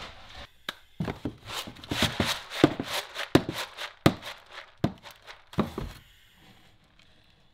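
Hands spreading and working rice in a wooden koji tray: a quick run of dry rustles from the grains and light knocks of the wooden tray, stopping about six seconds in.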